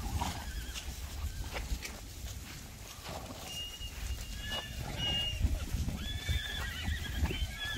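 Horses whinnying: several high calls from about halfway in, the longest near the end, over a low rumble.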